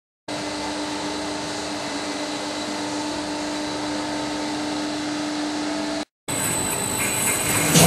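Industrial dice cutter with grid conveyor and circular-blade roller running: a steady machine hum with a constant low tone. It breaks off briefly about six seconds in, then resumes with a high whine and a knock near the end.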